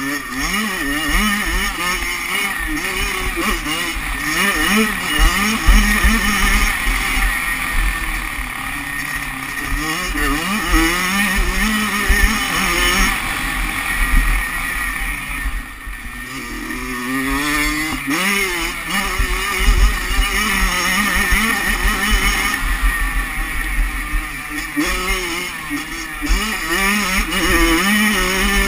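Kawasaki 85cc two-stroke motocross engine heard onboard, revving up and down as the rider accelerates, shifts and rolls off the throttle, with wind rumbling on the microphone. The revs and level drop briefly about halfway through, then climb again.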